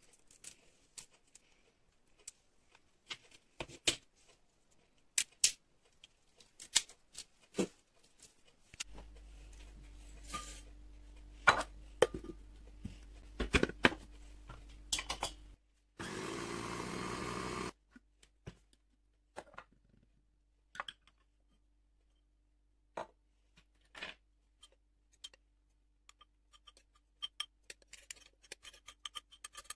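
Roasted peanuts being shelled by hand, a run of sharp shell cracks. Then clicks and knocks of a small glass-jar food chopper being handled, and about 16 seconds in its motor runs once for about two seconds; scattered clinks and taps follow.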